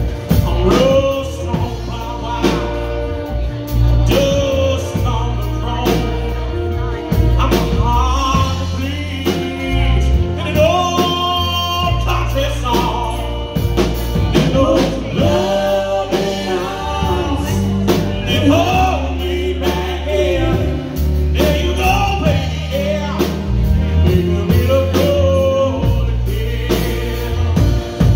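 Live band playing a song: a man singing lead into the microphone over fiddle, electric guitar, bass guitar and drum kit.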